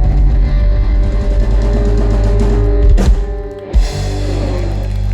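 Live rock band playing with electric guitar and drum kit: a sharp crash about three seconds in, then a held chord near the end as the song draws to its close.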